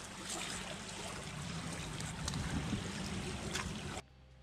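Steady rushing shoreline ambience of wind and water, with a few faint clicks. It cuts off suddenly about four seconds in.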